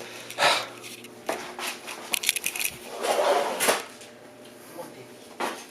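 Scattered light knocks and clatter of hard objects being handled, with a cluster of clicks about two seconds in, a short rustling scrape around three seconds in, and one more knock near the end.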